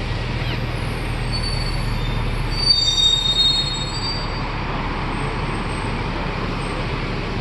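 Tour bus in traffic, with engine and road noise, as brakes squeal in thin high tones for two or three seconds starting about a second in. The low engine hum drops away near the middle.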